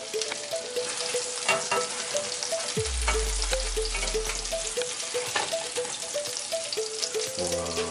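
Salmon fillets sizzling and crackling as they pan-fry in butter in a nonstick pan, with utensils scraping as the pieces are turned. A low rumble sounds for about two seconds near the middle.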